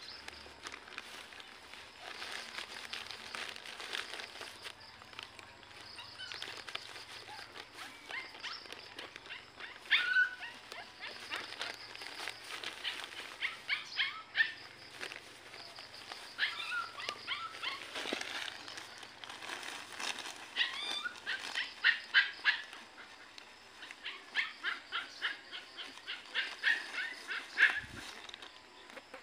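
A plastic bag crinkling and rustling in rapid, irregular bursts as a puppy tugs, bites and rolls on it. A few short puppy whines are mixed in.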